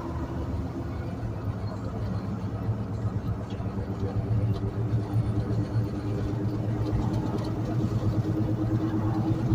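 Front wheel bearing of a 2006 GMC Yukon droning as the truck rolls, a steady low hum with a steady tone above it, growing a little louder about halfway through, heard from inside the cabin. It is the sound of a failing front wheel bearing.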